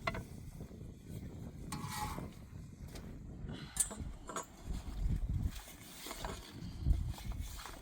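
Strong wind buffeting the microphone in uneven gusts, with a few scattered clicks and knocks.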